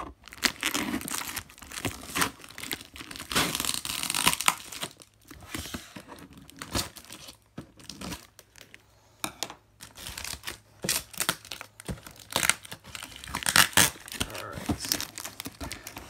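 Clear packing tape being peeled and torn from a cardboard shoebox: crinkling tape and rustling, scraping cardboard with small knocks, in irregular bursts. There is a sparser, quieter stretch in the middle.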